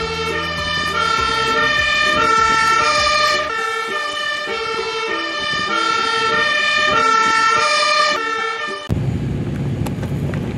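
Magirus aerial-ladder fire engine sounding its two-tone siren, switching steadily back and forth between two pitches, with a low rumble under it for the first few seconds. About nine seconds in it cuts off abruptly to a steady outdoor background noise.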